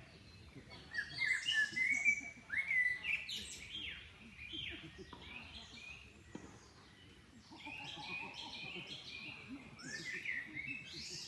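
Songbirds chirping and singing in short, overlapping calls and quick whistled notes. They are busiest in the first few seconds and again near the end.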